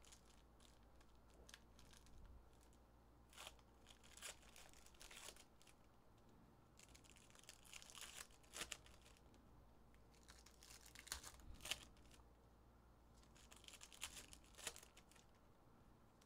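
Foil trading-card pack wrappers being torn open and crinkled by hand, faint, with crackles and sharp ticks coming and going every few seconds.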